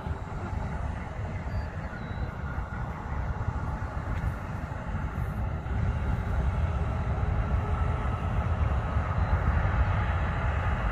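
Distant jet engines of an American Airlines Boeing 777-200ER rolling out along the runway after landing, heard as a steady deep rumble that grows louder about six seconds in.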